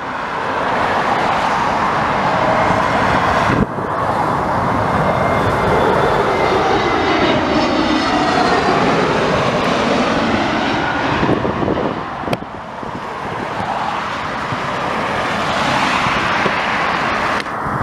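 Jet engine noise of an Airbus A320neo airliner on final approach, a loud steady roar that swells and sweeps as the aircraft passes low overhead.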